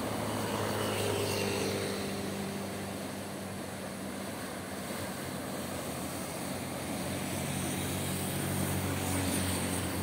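Waves washing and breaking over a rocky shore, a steady rushing hiss, with a low steady engine drone running under it, such as a motorboat or aircraft in the distance.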